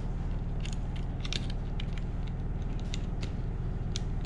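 Small, scattered clicks of plastic wire connectors being handled and pushed into a gel blaster's circuit board, about eight light ticks over a steady low hum.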